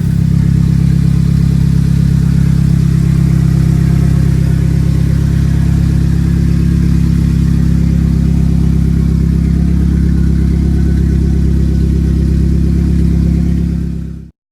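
Turbocharged Toyota 2RZ four-cylinder engine running steadily at a constant speed, then cutting off abruptly near the end.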